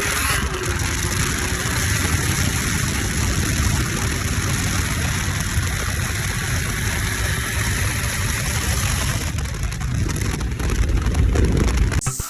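BMW F80 M3's twin-turbo straight-six engine and exhaust running, a steady dense noise that grows louder toward the end and then cuts off suddenly.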